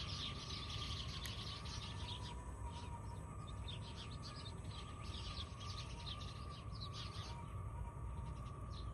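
Many small birds chirping rapidly, with a steady faint high hum and a low rumble underneath.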